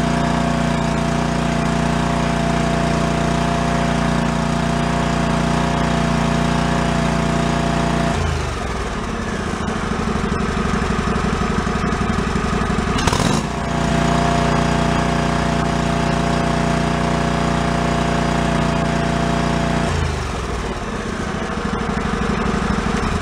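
John Deere LX178 garden tractor's liquid-cooled Kawasaki engine running on its freshly rebuilt carburetor. Its speed drops about 8 seconds in, picks back up about 14 seconds in just after a sharp click, and drops again about 20 seconds in.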